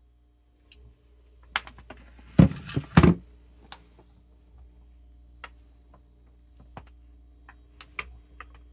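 Handling noise: scattered small clicks and taps, with a brief loud rustling scrape about two and a half seconds in.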